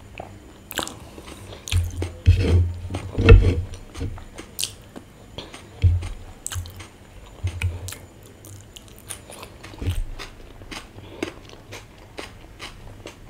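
Close-miked chewing and mouth sounds of a person eating: wet smacks and many small clicks. The loudest part, a cluster of heavier low thumps, comes about two to four seconds in.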